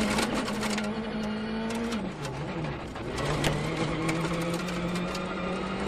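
A Ford Fiesta RS WRC's turbocharged four-cylinder engine runs at high, steady revs. The note drops and changes pitch about two seconds in, as at a gear change or lift, then settles steady again. Sharp ticks come throughout.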